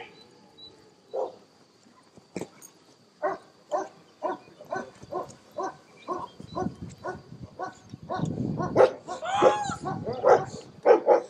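German shepherd barking in a steady string of short barks, about two a second, that turns louder and more crowded near the end.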